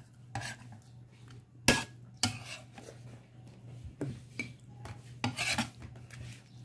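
Eating by hand from a glass plate: fingers gathering and pressing rice and fish against the plate, with scattered clinks and scrapes, the sharpest clink about two seconds in. A steady low hum runs underneath.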